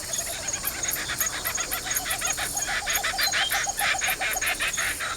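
Outdoor nature ambience of steady insect chirping, with an animal's rapid chattering call, about seven pulses a second, starting about a second in and running almost to the end. A few short rising chirps sound over it around the middle.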